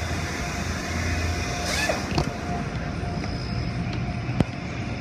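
Steady hum and hiss of car wash machinery, with a few sharp clicks, the loudest about four and a half seconds in.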